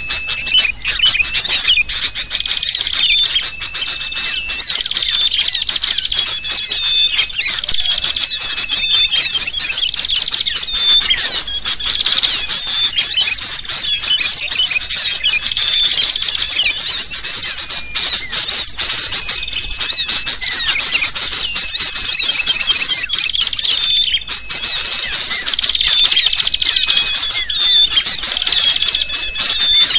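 A dense, noisy chorus of agitated sooty-headed bulbul (kutilang) calls mixed with the chatter of many small birds, made as a bird lure. Short whistled notes repeat about every second and a half over a continuous jumble of chirps and squawks.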